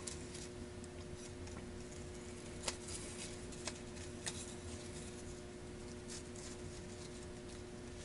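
A few light metallic clicks as the round metal plates of a pulse furnace's air flapper valve are handled and fitted back together by hand, over a faint steady hum.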